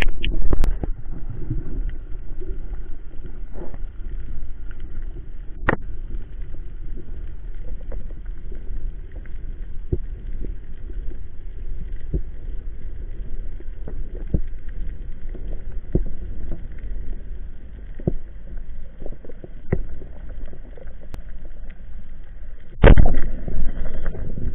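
Underwater sound picked up by a diving camera: a steady low rumble of water with a faint steady hum and scattered sharp clicks every second or two, then a loud rushing burst near the end.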